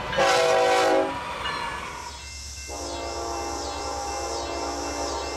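A diesel locomotive horn sounds one short blast lasting about a second. After a brief gap, a second locomotive horn, a Nathan K5LLA five-chime on an approaching train, sounds one long steady blast over a low rumble and a pulsing high hiss.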